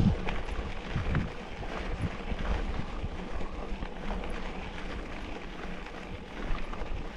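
Wind noise on the microphone over the rolling rumble of a Norco Revolver FS 100 full-suspension mountain bike being ridden on rough ground, with many small clicks and rattles from the bike.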